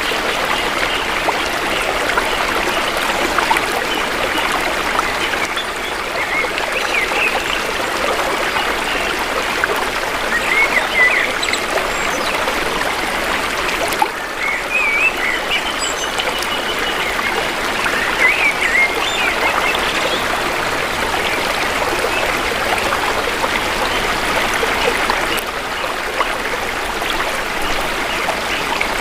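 Shallow river water flowing and trickling steadily over stones. Now and then a few short bird chirps sound above the water.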